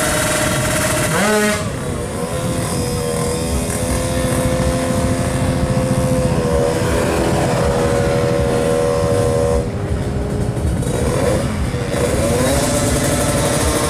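Two-stroke drag-bike engine revving hard: the pitch climbs about a second in and holds at high revs, breaks off near ten seconds, then rises again near the end.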